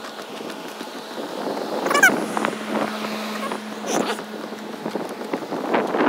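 Steady low hum of rooftop HVAC units with wind on the microphone, the hum dropping away near five seconds. A short, high squealing call about two seconds in, and a shorter one near four seconds.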